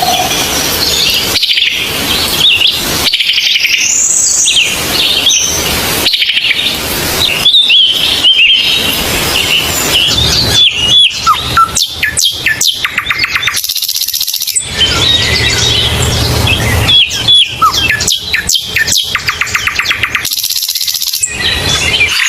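Forest songbirds singing and chirping, with quick trills and whistled notes crowding over one another. The sound changes abruptly every second or two, as if separate recordings were spliced together.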